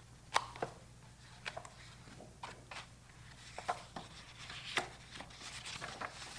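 Large paper pages of a picture book being turned and handled: scattered soft taps and paper rustles, with a longer rustle near the end.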